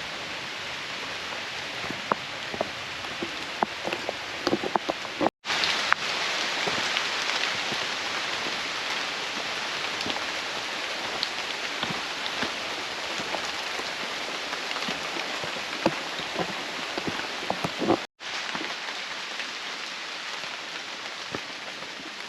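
Steady heavy rain, with many close raindrops ticking sharply through the hiss. The sound cuts out for an instant twice, about five seconds in and near eighteen seconds.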